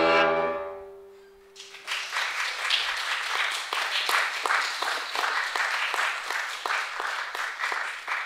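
Violin and piano holding a final chord that dies away within about the first second, followed by audience applause of many quick claps.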